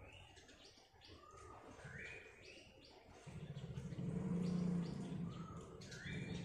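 Kutilang emas (black-crested bulbul) singing short clear whistled phrases, with notes gliding upward. About three seconds in a low droning hum comes in under the song and becomes the loudest sound.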